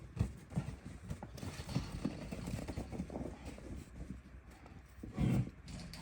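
Tigers moving and scuffling, making irregular soft thuds and footfalls. A short low grunt comes about five seconds in.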